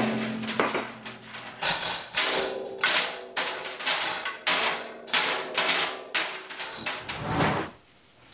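Irregular metal knocks and clatters, more than a dozen in a few seconds, some ringing briefly, as the mini Pull Max metal-shaping machine is handled on its steel stand. They stop abruptly near the end.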